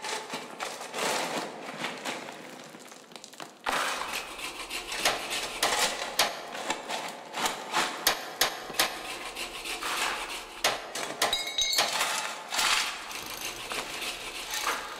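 Irregular hammer knocks and clanks of metal and wood over a steady background noise, like work on a building site.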